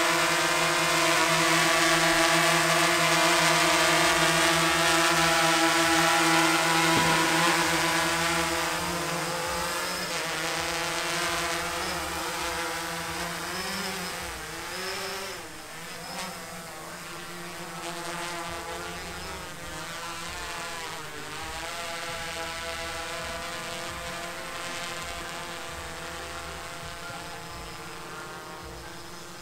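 F330 quadcopter's brushless motors and propellers buzzing steadily while it hovers near, then wavering up and down in pitch and fading as the drone climbs away.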